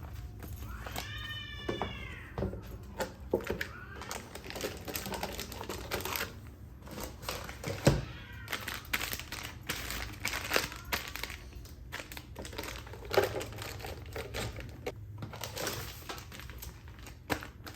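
A domestic cat meows once, a single rising-and-falling call, about a second in. Then come irregular clicks, light knocks and rustling, like things being handled.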